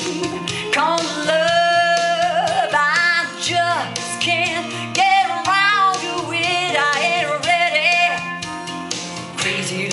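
A woman singing live into a handheld microphone over instrumental backing music, holding long notes with vibrato and gliding between them.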